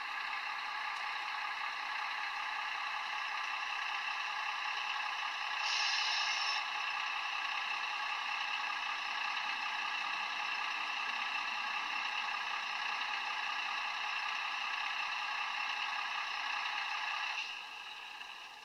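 A model diesel locomotive's DCC sound decoder playing a diesel engine running, through the loco's small onboard speaker: a steady, tinny drone with no deep bass. It briefly gets louder about six seconds in and cuts off suddenly about a second before the end.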